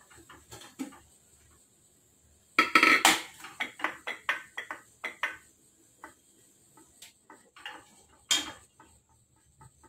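A stainless-steel pressure cooker's lid is twisted free and lifted off the pot, with metal scraping and clanking, loudest about two and a half to three seconds in. A run of lighter metal clinks follows, and a single sharper clank comes near the end.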